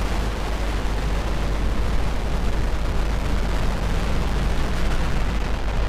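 Falcon 9 first stage's nine Merlin 1D rocket engines firing during ascent: a steady, deep, noisy rumble. The first-stage propulsion is running nominally.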